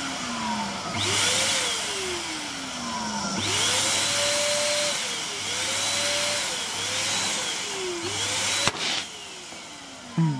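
Electric balloon pump running in several bursts to inflate a large latex balloon, its motor pitch sagging and recovering as it works. A single sharp snap comes about three-quarters of the way through.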